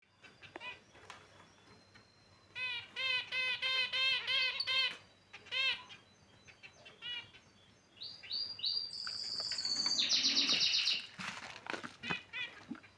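Caged finches calling: a quick run of short repeated chirps, then a longer buzzing, high trill a little past the middle that is the loudest part, with scattered single chirps around them.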